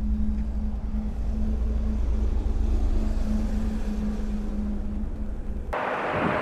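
Steady low rumble of road traffic with a constant hum. About a second before the end it cuts abruptly to a loud hiss of wind buffeting the microphone.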